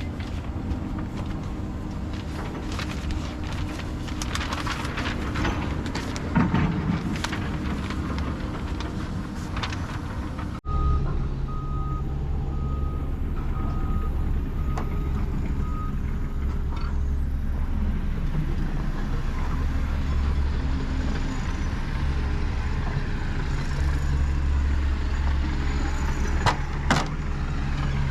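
Diesel engine of an Atlas Copco PowerRoc T45 drill rig running steadily. It breaks off abruptly about ten seconds in and carries on with a heavier low hum. Just after the break comes a run of short, evenly spaced beeps lasting about five seconds.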